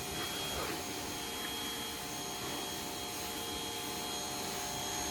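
Pressure washer running steadily, with an even hiss of spray and a faint constant hum.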